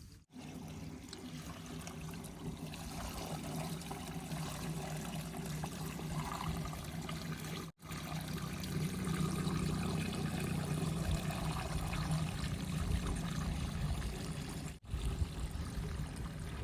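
Heavy diesel machinery running with a steady low hum under a continuous rushing noise. The sound drops out briefly twice.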